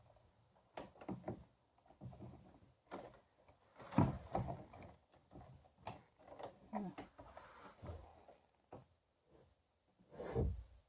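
Scattered clicks, knocks and rustles of the kayak's rudder control knob parts being handled, with the loudest knocks about four seconds in and again near the end.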